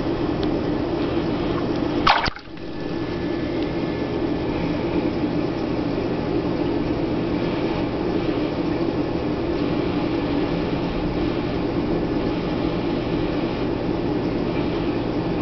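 Steady rushing of a reef aquarium's water circulation and pumps, with a single sharp click about two seconds in.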